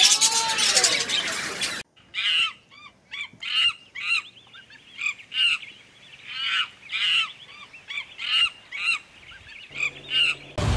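A loud, dense sound cuts off sharply about two seconds in. It is followed by a run of short, high-pitched animal calls, about two a second, each one separate with short pauses between.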